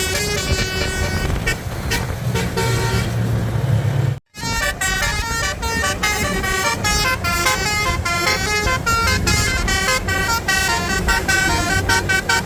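Bus telolet 'basuri' musical horn playing a fast melody of short, stepped notes. The sound drops out completely for a split second about four seconds in, then the melody carries on.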